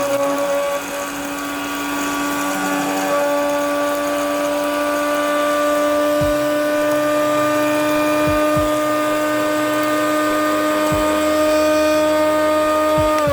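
Miyako BL 101 PL blender motor running steadily with its small grinder jar, grinding peanuts, with a few low knocks. It is switched off near the end and its hum slides down in pitch as it spins down.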